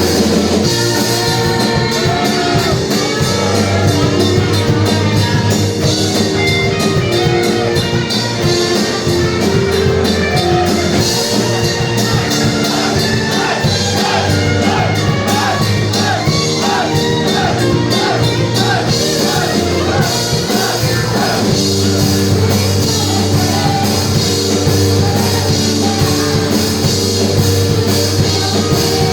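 A rock band with lead vocals, electric guitars, bass, drums and keyboards playing a song live, the singer's voice running over a steady drum beat and bass line.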